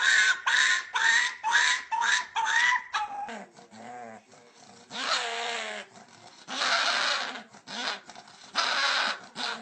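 A dog making odd vocal noises: a quick run of about eight short, high calls in the first three seconds, then three longer, rougher calls about two seconds apart.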